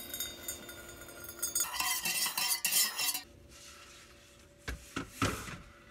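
Metal utensil scraping and clinking against dishes, with faint ringing metal tones. It is loudest between about two and three seconds in, and a few short knocks follow near the end.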